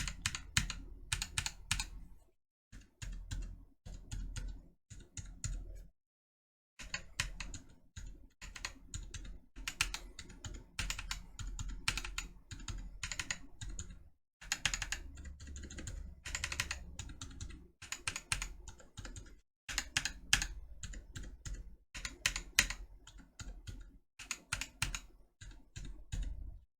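Typing on mechanical keyboards with Gazzew Boba switches: the thocky tactile U4T and the silenced U4, with black Boba housings, 65 g springs and DSA blank keycaps. Continuous runs of keystrokes are broken by several sudden silent cuts.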